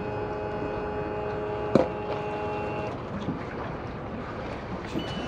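Boat's outboard motor running as the boat pulls away from the launch: a steady whine fades out about three seconds in, a sharp knock comes a little before that, and a rougher running noise follows.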